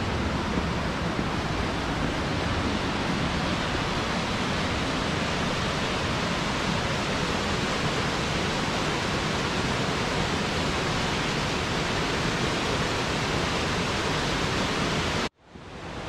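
Tall waterfall plunging into a plunge pool: a steady, even rush of falling water that cuts off suddenly near the end.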